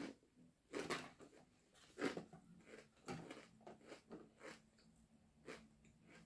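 Close-up eating sounds: chewing with soft crunches, and a plastic fork picking through salad in a clear plastic tub, heard as a scattered series of short clicks and crackles.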